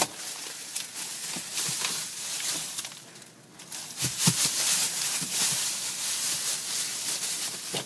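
Shattered tempered car-window glass, held together by security film, crackling and crunching as a gloved hand pushes and punches through it. A sharp hit at the very start, a lull about three seconds in, then a few knocks and more crackling that cuts off suddenly near the end.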